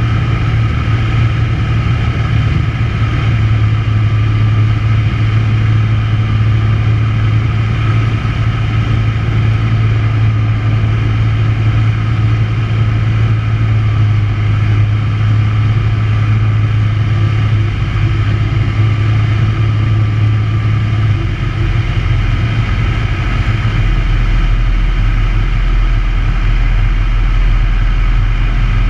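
Tecnam P92 light aircraft's engine and propeller heard inside the cockpit, running steadily on the approach. About 21 seconds in the engine note drops lower and stays there as power comes back for the landing.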